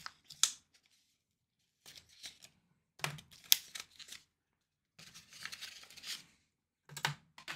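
Plastic blister packaging of pens being handled, crinkling and rustling in several short bursts, with one sharp click about three and a half seconds in.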